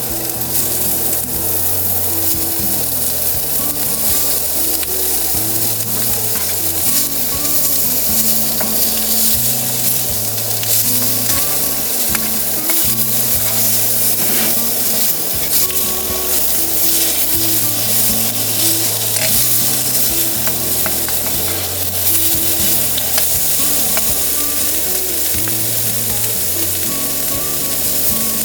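Chicken frying in a pan, a steady loud sizzle flecked with small spattering pops. Low background music with slowly changing bass notes runs underneath.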